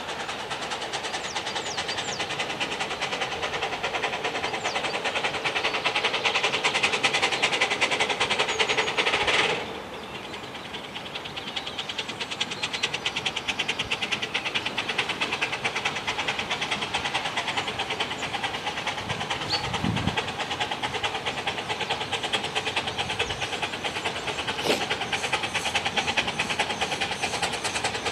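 A 15-inch gauge steam locomotive works a passenger train towards the camera, its exhaust beating rapidly over a steady hiss of steam. The loudest hiss cuts off sharply about nine seconds in, and the exhaust beat carries on more quietly.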